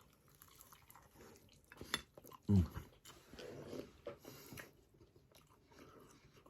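Someone chewing and biting into a crisp onion bhaji, with small crunches and mouth clicks. About two and a half seconds in there is a brief low vocal sound that falls in pitch.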